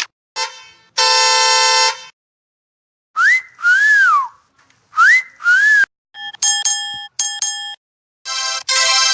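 A string of short sound effects: a held buzzer-like tone, then a two-note whistle (a rising glide, then a rise and fall) heard twice, then two short honking tones and another buzz near the end.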